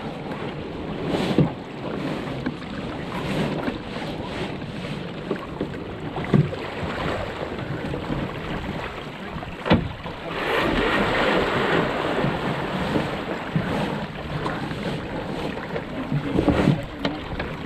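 Wind buffeting the microphone over water rushing and slapping along the hull of a National 18 sailing dinghy under way, with a few sharp knocks and a louder rush of spray hiss about ten seconds in.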